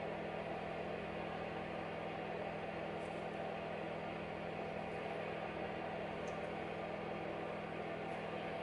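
A room heater running with a steady whir and a low hum.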